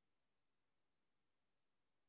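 Near silence: the sound track is almost empty, with no audible event.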